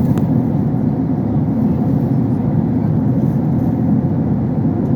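Steady low rumble of engine and airflow noise heard inside an airliner cabin in flight.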